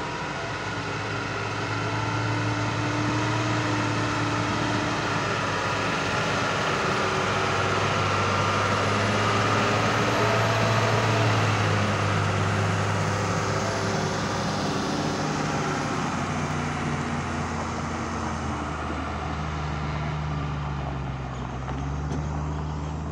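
Loaded Tata tipper truck's diesel engine running as it drives by on a dirt track, with tyre and body noise. It grows loudest about halfway through as the truck passes closest, then eases off as it pulls away, the engine note shifting near the end.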